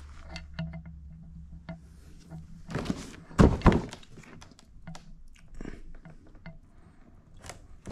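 Large cardboard box being handled and turned around on carpet: scattered taps and scrapes, with two heavier thumps about three and a half seconds in.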